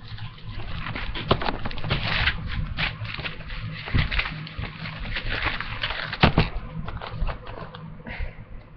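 Irregular clicks and knocks close to the microphone over a low steady hum.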